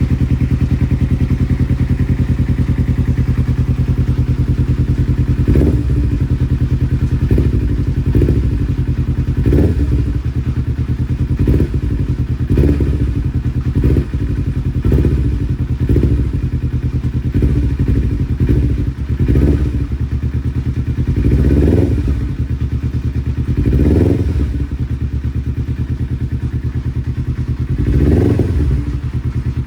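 2009 Kawasaki Ninja 250's parallel-twin engine idling, with short throttle blips every second or two that briefly raise its pitch.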